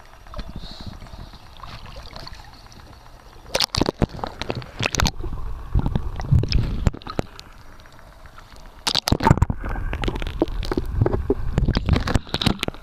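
A dachshund pushing its snout into shallow water and blowing bubbles, with splashing and gurgling. It comes in two loud spells, the first a few seconds in and the second after a short lull.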